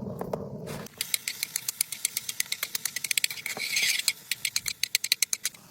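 A quick, irregular run of light, sharp clicks and taps, several a second, with a short hiss in the middle, starting about a second in after a low muffled rumble.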